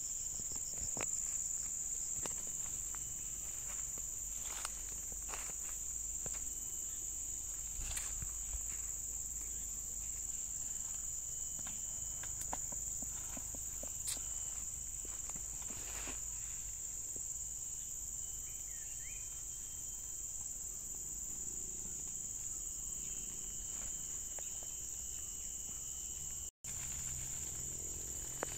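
Insects droning in one steady high-pitched note, with scattered rustles and light crunches of footsteps moving through dry undergrowth. The sound cuts out for an instant near the end.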